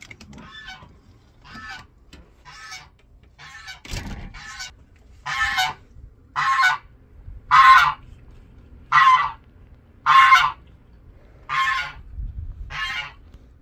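A goose honking over and over, roughly once a second, the honks growing louder from about five seconds in. A low thump about four seconds in.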